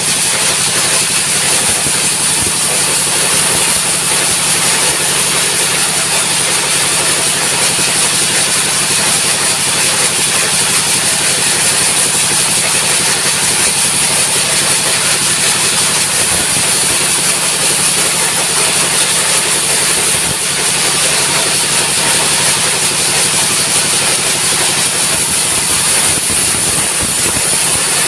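Sawmill driven by a diesel engine running hard at full throttle, a steady, loud engine drone with a strong high hiss over it, unchanging throughout.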